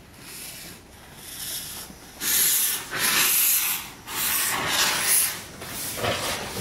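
Cut-down Bagnall 0-4-0ST saddle tank steam locomotive pulling away slowly, giving a run of loud, uneven chuffs of exhaust steam about one a second, with hissing from the cylinder drain cocks.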